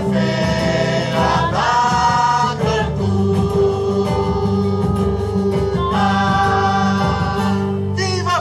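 Music: several voices singing long held notes together in a choral style over a steady low accompaniment, the notes changing every second or two.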